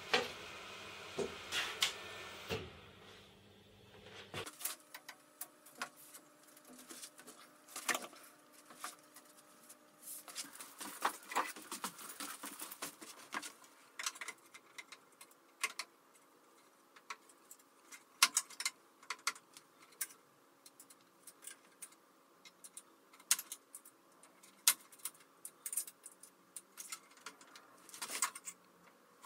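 Scattered small clicks, taps and knocks of hands fitting a router mount onto a CNC machine's aluminium C-beam Z-axis carriage, metal and plastic parts knocking together. A steadier hum underneath stops about four seconds in.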